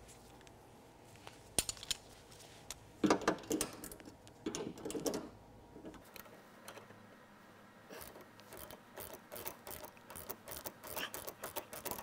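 Hand tools on the top mount of a Mercedes R107 rear shock absorber: a wrench and a shaft-holding tool clinking and rattling against metal, with two louder rattles early on and a run of quick metallic clicks in the second half as the nut is worked.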